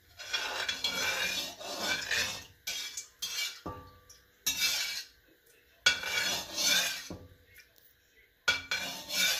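Metal slotted spoon scraping and stirring around the inside of a stainless steel karahi holding hot oil, in about five separate bursts of strokes with short pauses between them.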